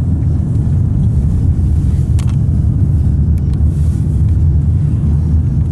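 Steady low rumble of a car's engine and tyres heard inside the cabin while driving.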